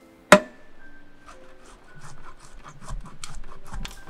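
Block of cheese grated on a metal box grater: quick scraping strokes, about four a second, from about a second in. A single sharp knock comes just before them.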